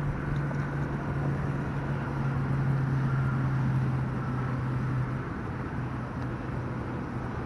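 Steady freeway traffic noise, with a low drone that weakens about five seconds in.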